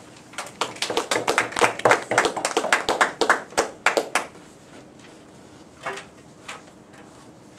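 A small group of people clapping for about four seconds, then the applause stops, followed by two faint knocks a little later.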